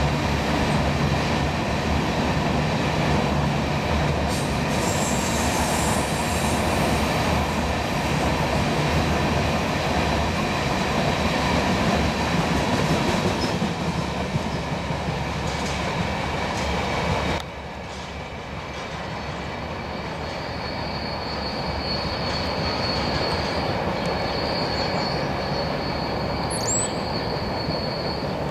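Freight cars (covered hoppers and a tank car) rolling past, a loud steady rumble and rattle of steel wheels on rail with some wheel squeal. About two-thirds of the way through, the sound drops suddenly to a quieter, more distant rumble, with a thin high squeal held near the end.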